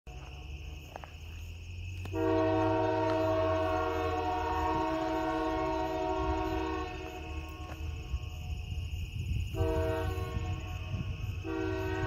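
Multi-chime air horn of CPR locomotive 2242 sounding a long blast, then a short blast, then another blast starting near the end. A low steady diesel engine rumble runs under it.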